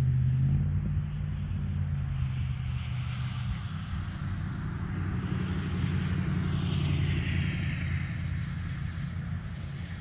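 Federal Signal 2001-SRNB outdoor warning siren winding down after its alert cycle: its tone slides slowly lower and fades over a steady low rumble.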